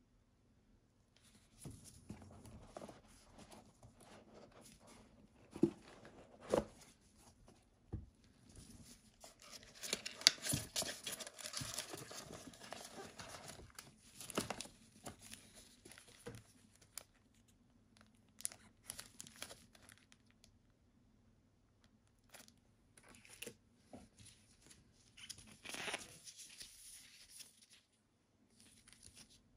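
Cardboard watch box and its paper inserts being handled by gloved hands: intermittent rustling and crinkling of paper and cardboard, with a few sharp knocks and clicks. There are two longer stretches of rustling, one about a third of the way in and one near the end.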